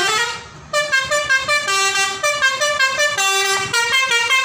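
A bus's multi-tone 'telolet' air horn playing a tune of quick stepped notes. It breaks off briefly just before a second in, then plays on. The horn is on a yellow Bentas coach as it comes up close.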